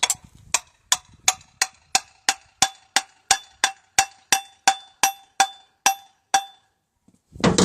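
Hammer tapping steel tailshaft parts: about three evenly spaced, ringing metal-on-metal strikes a second, stopping shortly before the end.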